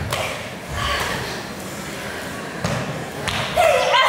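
Dancers' feet and bodies thudding on a wooden floor, mixed with short wordless vocal sounds from the performers. A louder cry rises near the end.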